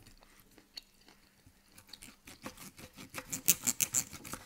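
Close-up eating sounds of a rib steak: chewing mixed with knife-and-fork cutting on a wooden board. A few scattered clicks give way about halfway through to a fast run of clicks, loudest near the end.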